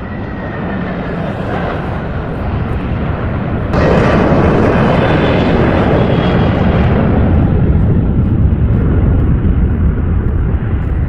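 Jet airliner engines running on the runway: a steady, noisy rumble with a faint whine, which jumps suddenly louder about four seconds in and then holds.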